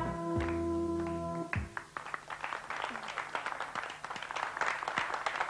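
A children's song ends on a held final chord about a second and a half in. Children then clap in steady, dense applause.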